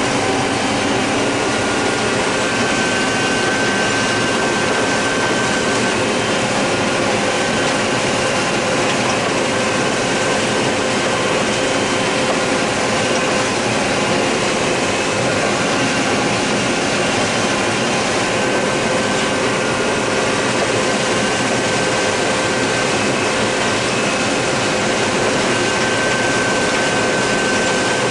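John Deere 9600 combine running steadily while harvesting corn: the engine and the threshing and separating machinery make a constant mechanical rush with a few steady whining tones on top.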